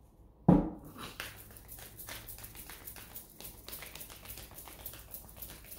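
A deck of tarot cards shuffled by hand: one short thump about half a second in, then a long run of faint, quick card clicks and rustles.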